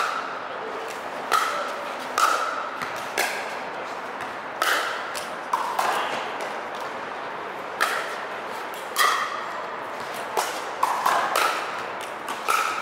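Pickleball paddles striking a hard plastic ball during a rally: about a dozen sharp pocks at irregular intervals of roughly a second.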